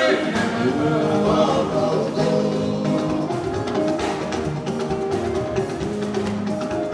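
Music with a sung vocal line over drums and other percussion.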